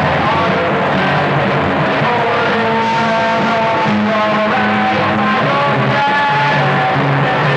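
A 1960s garage rock band playing electric guitar over bass, heard from an old home cassette recording.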